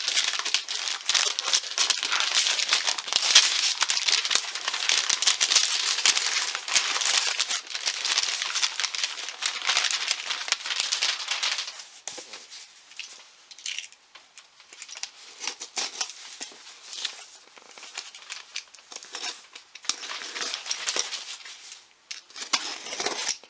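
A shiny silver gift bag crinkling loudly as it is handled and rummaged through for about the first twelve seconds. Then quieter, scattered rustling and scraping as a cardboard box is handled and its packing tape slit with a box cutter near the end.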